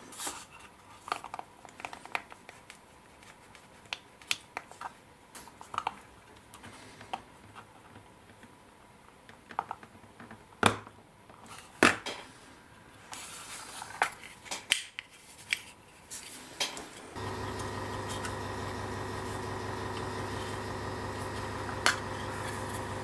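Small clicks and taps of steel tweezers and plastic model parts being handled on a cutting mat, with two sharper clicks about halfway through. About three quarters of the way in, a steady hum with several fixed pitches starts and runs on.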